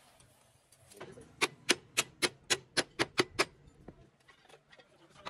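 Nine quick metal-on-metal hammer blows, about four a second, struck at a truck chassis's leaf-spring hanger and shackle during spring fitting.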